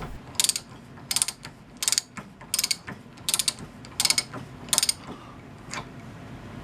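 Walden Worcester No. 916 half-inch drive ratchet wrench clicking in eight short bursts, one about every three-quarters of a second, the last one fainter, as its freshly oiled ratchet mechanism is worked back and forth.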